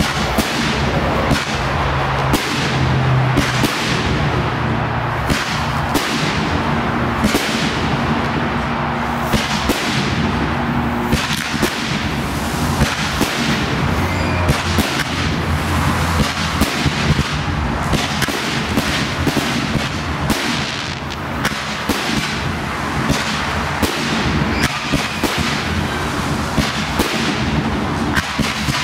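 Fireworks display: shells and cracker effects bursting in rapid, continuous succession, a dense stream of bangs, whip-like cracks and crackle.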